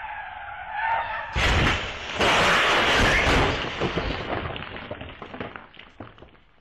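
A car crash: a wavering squeal, then a hard impact about a second and a half in, a louder crunching and scraping stretch, then scattered clattering that dies away.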